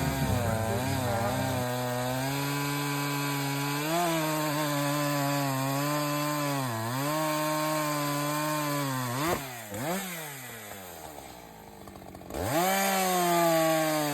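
Echo two-stroke chainsaw running at high revs while cutting wood, its pitch dipping briefly as the chain loads up. A little past halfway the revs drop sharply twice, the saw goes quieter for about two seconds, then revs quickly back up to full speed.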